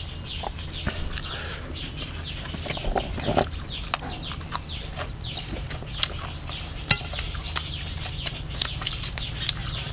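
Chickens chirping and clucking: many short falling chirps with scattered clicks, over a steady low hum.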